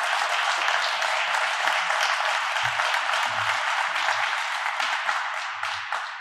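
Audience applauding steadily, a dense patter of many hands clapping that starts to die away near the end.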